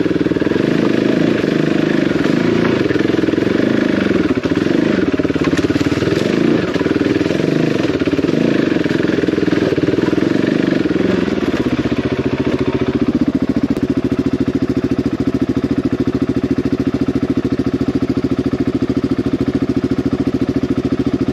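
Single-cylinder dual-sport motorcycle engine, ridden over rough ground: the revs rise and fall with the throttle for the first half, then settle into a steady, even note about halfway through.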